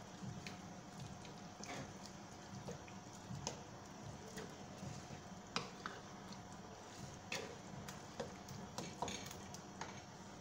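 Wooden spatula stirring minced meat in a metal pot, with irregular light knocks of the spatula against the pot's side.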